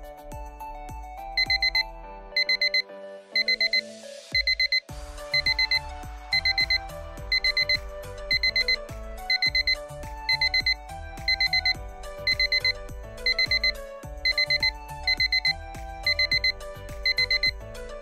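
Digital alarm of the Pipitbody alarm-clock bathroom scale beeping in quick groups of four, about once a second, starting about a second in, over background music; it keeps sounding until someone stands on the scale to weigh in.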